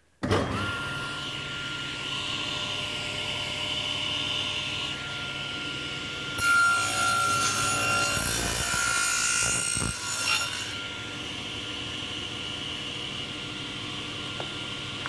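Excalibur table saw switched on near the start: the motor and blade spin up suddenly and run with a steady whine. From about 6 to 10 seconds in, the blade cuts a tenon cheek in wood held in a tenon jig, and the sound grows louder and noisier. It then goes back to running free.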